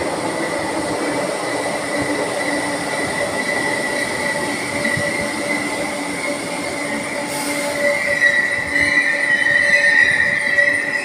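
Merseyrail Class 507 electric multiple unit crawling into an underground platform, with the hum of its running gear and a steady high-pitched squeal. The squeal grows louder over the last few seconds as the train brakes to a stop.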